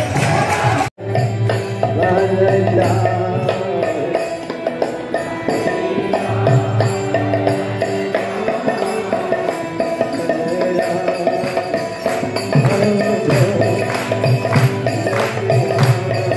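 Devotional kirtan music: held chord tones over steady rhythmic jingling percussion. The sound drops out for a moment about a second in.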